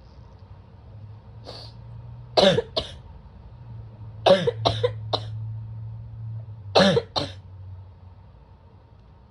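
Three harsh, barky fits of coughing from a person with bronchitis, each of two or three sharp coughs in quick succession, the first cough of each fit the loudest.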